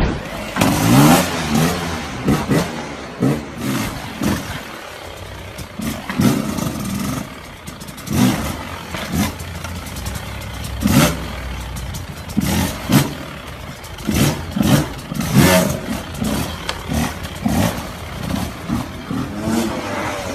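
Two-stroke motocross bike engine revving in short rising bursts, over and over, as the throttle is worked while riding.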